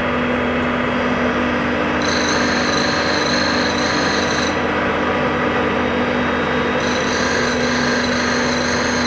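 Hob sharpening machine running, its dish-shaped grinding wheel grinding the tooth faces of a gear hob over a steady motor hum. A high-pitched grinding sound comes in twice, about two seconds in and again about seven seconds in.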